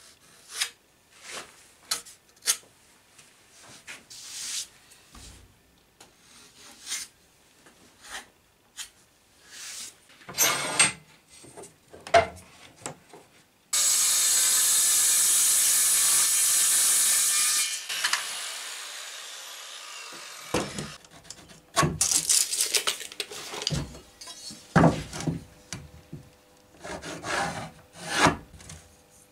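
Workshop handling sounds of tools and wood: short scrapes, rubs and knocks. About halfway through, an electric power tool motor runs steadily for about four seconds, then spins down with falling pitch, followed by more scrapes and knocks.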